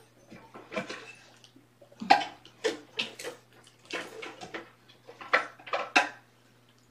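Irregular clattering and rustling, about eight short knocks and scrapes in a few seconds, the loudest about two seconds in.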